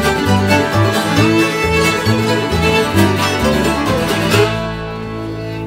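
Acoustic bluegrass string band, with guitar, fiddle and upright bass, playing up-tempo. About four seconds in, the tune ends on one held chord that rings out and fades.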